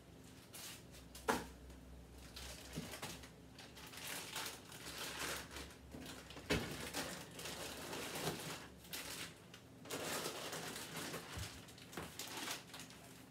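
Plastic food bags and containers being handled and set down, crinkling and rustling, with a few sharp clicks and knocks.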